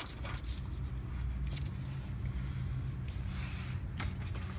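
Faint, scattered light clicks and scrapes of hand work on the oil filter housing under the truck, over a steady low hum.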